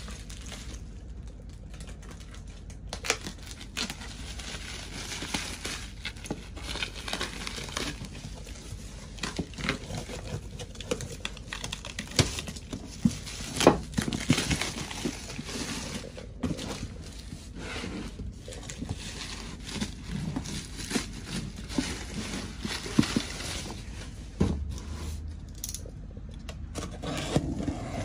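Blue plastic wrapping being crinkled and torn off a cardboard box by hand: a steady run of rustles and crackles with frequent sharp snaps.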